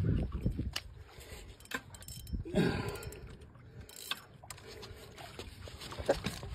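Scattered clicks, knocks and rustling from a phone being handled and people moving on a wooden dock, with a short voice-like sound about two and a half seconds in.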